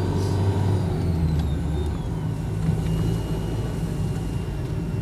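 Engine and road noise of a moving road vehicle; the engine note changes and drops about two seconds in.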